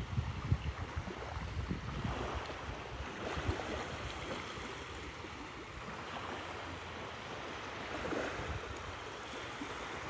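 Small waves washing on the shore, with wind buffeting the microphone in low rumbles over the first few seconds.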